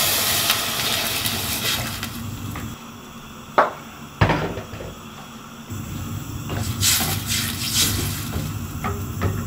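Water poured from an electric kettle into a stainless steel pot of lentils, dying away over the first couple of seconds. Two sharp knocks follow, then a wooden spoon stirring the lentils in the water with small scraping clicks.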